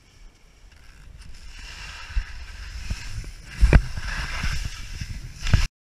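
Alpine skis scraping and swishing through soft, chopped-up spring snow during a descent, building as speed picks up, with low rumbling thumps of wind buffeting the microphone. The sound cuts off abruptly near the end.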